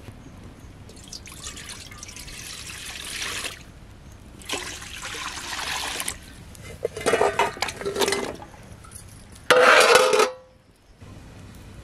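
Water being poured and sloshing in a cooking vessel as elephant foot yams are set to boil, in several spells, the loudest one near the end.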